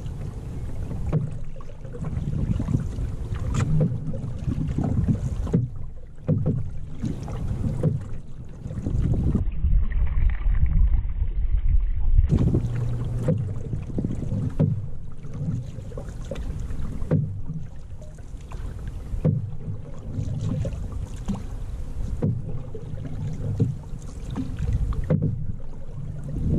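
Wind buffeting the microphone of a camera mounted on a canoe, a gusting low rumble, mixed with water sounds from the canoe being paddled.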